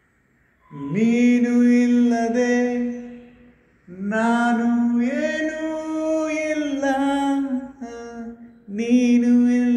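A single voice singing a Christian hymn unaccompanied, in three long phrases with held notes and short breaks between them.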